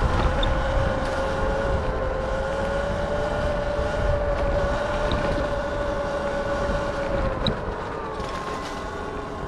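Electric bike motor whining steadily over the rumble of tyres on a dirt trail and wind on the microphone. The whine slides a little lower and the overall level eases off after about three-quarters of the way through.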